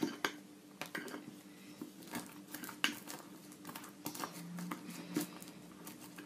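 Spoon stirring a thick mixture of butter, condensed milk and Nesquik in a glass bowl: irregular clinks and scrapes of the spoon against the glass, with soft squishing.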